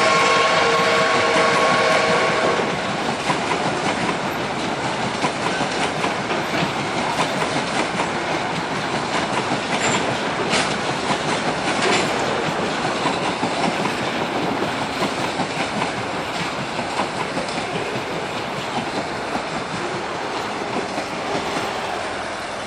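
A long, heavily loaded coal train rolling past, its wagon wheels clicking over the rail joints and slowly fading as the train draws away. A chord-like train whistle is sounding at the start and stops about two and a half seconds in.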